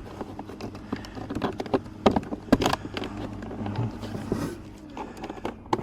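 Plastic door-trim parts and the door's inner fittings being handled and fitted back into place: a run of irregular sharp clicks and knocks, busiest about two to three seconds in.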